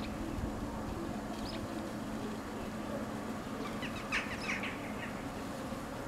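A quick cluster of short bird calls about four seconds in, with a fainter call about a second and a half in, over a steady low background rumble.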